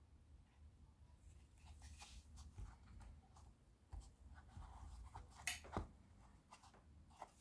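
Faint handling noises: light rubbing and rustling with scattered small clicks from a hand holding a watch and its box, with two sharper clicks close together late on.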